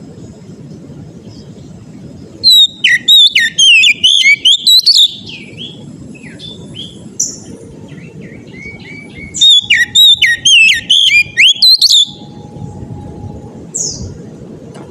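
Oriental magpie-robin (kacer) singing in its loud, open 'ngeplong' style: two bursts of quick, varied whistles and chirps a few seconds apart, then a short call near the end, over a steady low background noise.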